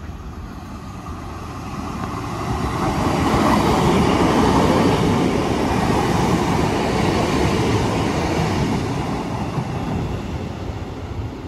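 A Class 156 and a Class 150 diesel multiple unit coupled together, passing through the station. The rumble builds to its loudest about four seconds in, then slowly fades.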